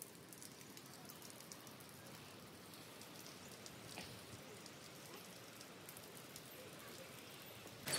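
Light rain falling faintly: a soft, even hiss with scattered tiny ticks of drops.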